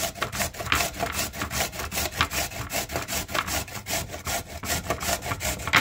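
A carrot being grated on a stainless steel grater. Quick back-and-forth rasping strokes come in a steady rhythm of about four to five a second.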